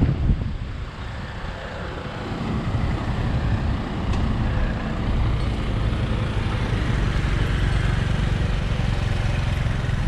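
An engine running, a steady low rumble that grows louder over the first three seconds and then holds.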